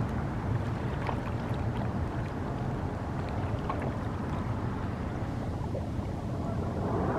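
Small pieces of floating lake ice jostling against one another, giving many faint scattered ticks and clinks over a steady wash of water.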